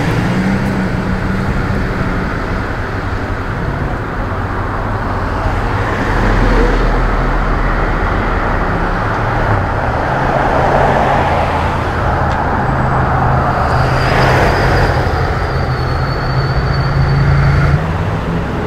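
Motor vehicle engines and road traffic: a steady low engine drone under the noise of passing cars.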